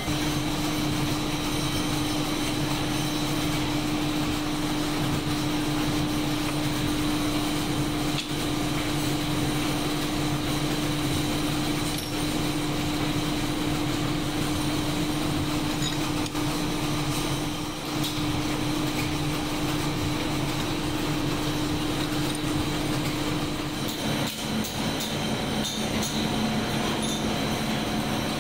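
Factory machinery running with a steady hum and a few sharp metallic clicks. The hum drops to a lower pitch about 24 seconds in.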